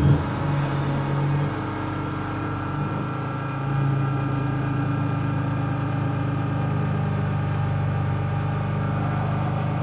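BMW M4 GT4 race car's twin-turbo inline-six running at a steady low idle, heard from inside the cockpit, as the car rolls to a stop in the first few seconds and then sits idling.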